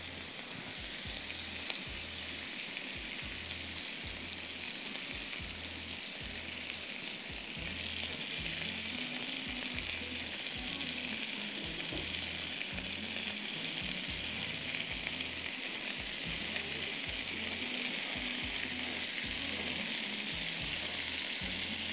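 Food sizzling steadily as it fries in hot oil in a pan, over quiet background music with a steady low beat.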